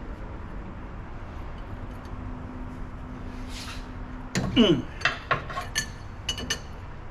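Wrench and steel valve parts clinking and tapping against each other: a short sound falling in pitch a little past halfway, then several sharp metallic clinks.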